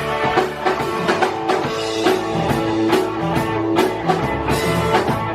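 Live rock band playing an instrumental passage: electric guitar over a steady drum beat.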